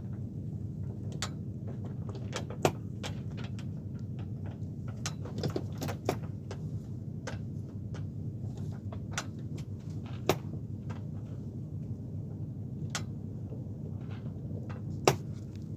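Sailboat rigging and sail hardware knocking and clicking irregularly as the boat rolls becalmed with the sail slack, three knocks sharper than the rest, over a steady low hum.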